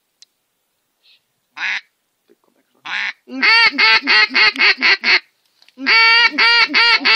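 Loud mallard-style duck quacks: a couple of single quacks, then two rapid runs of about six or seven quacks each, about four a second.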